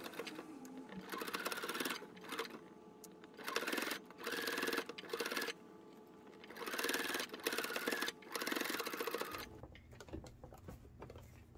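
Singer Quantum sewing machine stitching through a thick stack of about eight layers of towel and folded band. It runs in about six short spurts, stopping and starting between them, and falls silent near the end.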